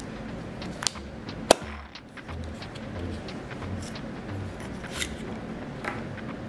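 Small plastic capsule from a chocolate surprise egg being handled and pulled open: a few sharp plastic clicks, the loudest about one and a half seconds in, over a low steady background hum.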